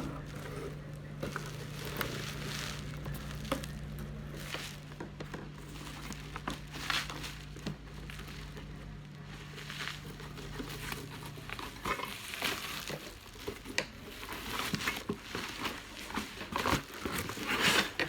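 Parcel packaging being handled and unwrapped: irregular crinkling and rustling that grows busier and louder toward the end. A steady low hum runs underneath and stops about two-thirds of the way through.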